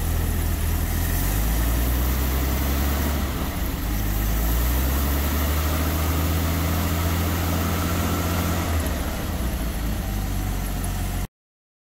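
Dodge M37's flathead inline-six engine idling after its first start. The idle speed wavers a few times, and the sound cuts off abruptly near the end.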